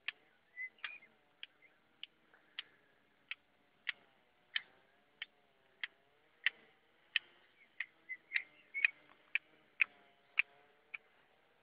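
Small hand secateurs snipping young thuja Smaragd shoots, a sharp click roughly every two-thirds of a second.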